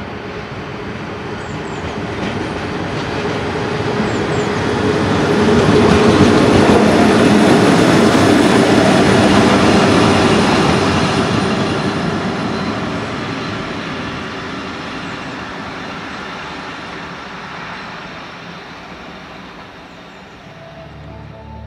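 DB class 151 electric locomotive passing close by as the pusher at the rear of a freight train, its wheels rumbling and clattering over the rails with a steady hum beneath. The sound swells to a peak a few seconds in and then fades slowly as the train draws away.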